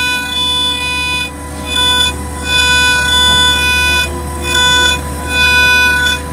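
CNC engraving machine's spindle whining at a steady pitch while a small cutter mills a brass embossing plate. A higher ringing tone from the cut breaks off and comes back several times, over a steady low hum.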